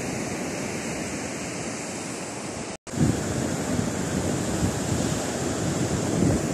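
Ocean surf washing on a beach, with wind buffeting the microphone. The sound cuts out for an instant about three seconds in, then returns with a heavier, fluttering wind rumble.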